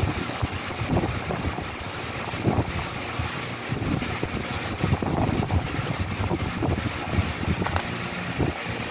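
Cardboard box and plastic-bagged parts being handled: irregular rustles and light knocks over a steady rushing background noise.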